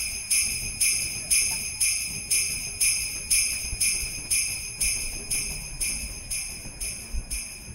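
Sleigh bells shaken on a steady beat, about two shakes a second, in a backing music track that is slowly fading.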